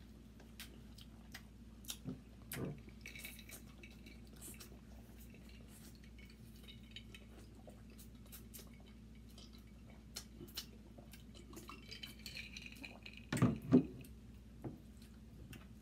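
Small clicks and scrapes of crab legs and shells being handled and picked apart at a glass dish while eating, with two heavy knocks close together near the end, fitting a glass drink bottle being set down on the table.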